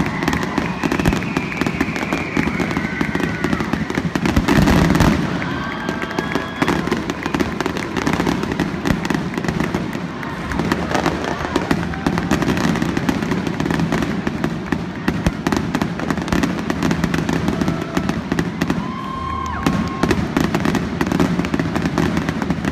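Fireworks finale: a dense, continuous barrage of aerial shell bangs and crackling, with the loudest burst about four and a half seconds in.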